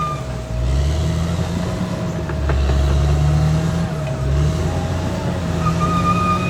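Caterpillar D6R XL bulldozer's diesel engine working, its pitch dipping and recovering three times as it takes and sheds load. A steady high tone comes in near the end.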